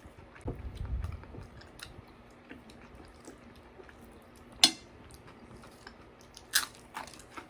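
A person chewing food close to the microphone, with small mouth clicks and a few sharp crunches. The loudest crunch comes a little past halfway.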